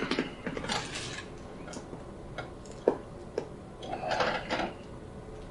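Handling noises on a chiropractic treatment table: scattered light clicks and taps, the sharpest about three seconds in, and a short rustle a little after four seconds.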